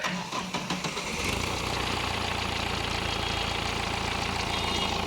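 Mahindra Bolero's diesel engine cranked by the starter for about a second, then catching and settling into a steady idle. The car now starts after its fuel-pump-related fault was repaired and the codes cleared.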